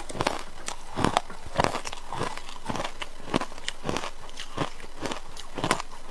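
Ice being bitten and chewed close to the microphone: a run of short, crisp crunches, about two a second.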